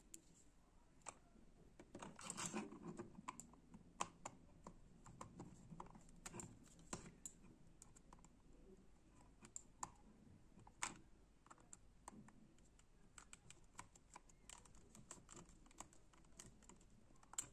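Faint, irregular clicks and ticks of a small screwdriver turning screws back into the plastic underside of a Logitech G300s mouse, with soft handling of the plastic shell.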